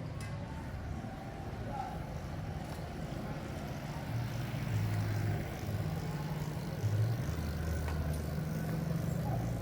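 Street ambience with a motor vehicle engine running low and steady, growing louder about four seconds in.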